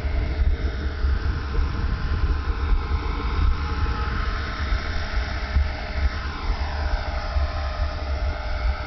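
HK 450 electric RC helicopter, a T-Rex 450 clone, flying in 3D mode: the brushless motor and rotor give a steady whine whose pitch glides up and down slightly with the manoeuvres. A low rumble runs underneath.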